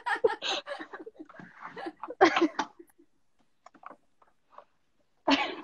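Women laughing in short bursts over the first couple of seconds and once more near the end, with a quiet gap between.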